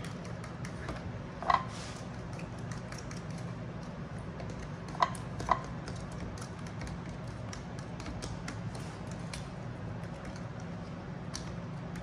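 A fork beating an egg mixture in a glass bowl: rapid light clicks of the fork against the glass throughout, with one louder clink about a second and a half in and two more about five seconds in.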